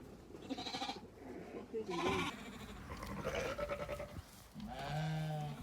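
Penned sheep and lambs bleating, several separate calls one after another, the last a longer, lower bleat near the end.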